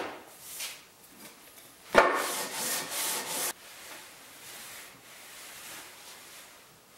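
Wood rubbing along a 2x4 guide rail: a knock about two seconds in, then a loud scraping rub that stops suddenly, with a fainter rub earlier.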